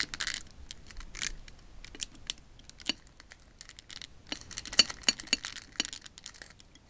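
Scattered light clicks and rattles of small hard objects being handled and moved about, with a denser run of sharper clicks about five seconds in.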